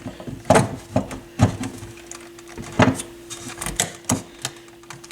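Irregular clicks and knocks of a turntable's plastic and metal parts being handled during disassembly, over a faint steady hum.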